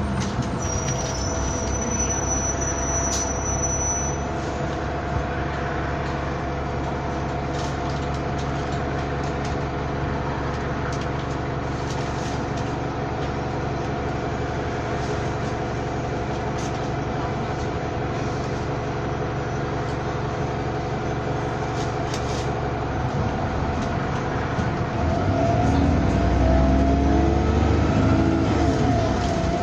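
Bus running, with a steady whining hum of several held tones; a few seconds before the end the tones rise and it gets louder as the bus pulls away or speeds up.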